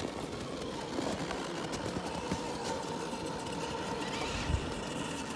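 Radio-controlled scale crawler driving slowly across a snowy slope: its electric motor and gears give a steady, faint whine. There is a brief low thump about four and a half seconds in.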